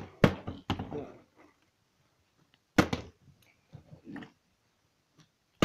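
A few sharp knocks and thuds: three close together in the first second, another about three seconds in, and one at the end, with faint rustling between them.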